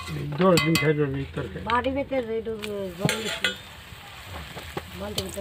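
A metal slotted spoon clinks and scrapes against a metal wok while papad pieces fry in hot oil. A person's voice is heard over it for the first three seconds or so, and again briefly near the end.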